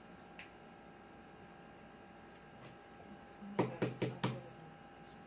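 Four quick sharp knocks a little past halfway: a boiled balut duck egg being tapped against the table to crack its shell, with a few faint clicks of shell before.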